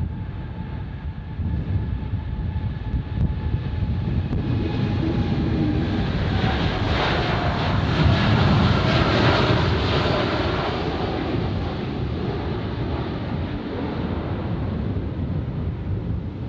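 Airliner departing after takeoff: engine noise building to its loudest about halfway through as it passes, then fading, with a thin whine heard at first.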